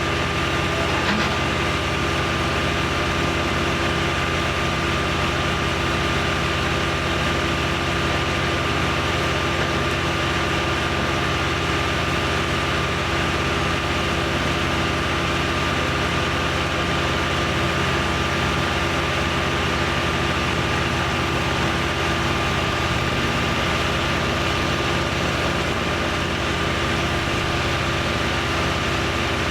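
An engine running steadily at one constant speed, with a thin steady high tone over the hum and no change in pitch or load.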